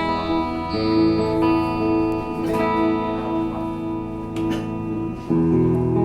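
PRS Custom 24 electric guitar with a Floyd Rose tremolo, playing sustained, ringing chords. The chord changes about a second in and again near the end.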